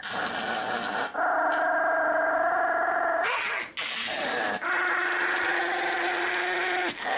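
Pomeranian giving a series of long, drawn-out whining cries, each held at a steady pitch for one to two seconds with short breaks between, one sliding in pitch midway.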